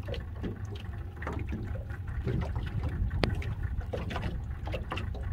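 Water lapping and splashing against the hull of a small open fiberglass fishing boat, over a steady low rumble, with one sharp click about three seconds in.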